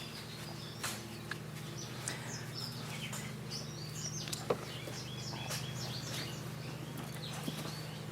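Small birds chirping, many short high calls scattered throughout, over a steady low hum, with a few sharp clicks about a second in and near the middle.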